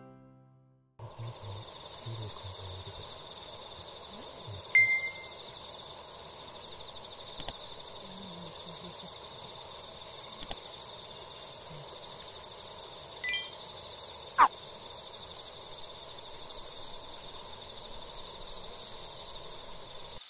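Background music ends within the first second, then an evening insect chorus trills steadily. A few brief chirps sound about five, thirteen and fourteen and a half seconds in.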